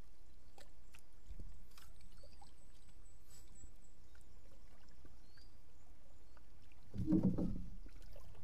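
Water moving against a small outrigger fishing boat while a longline is hauled in by hand, with scattered faint clicks of line handling. A brief, louder noise comes about seven seconds in.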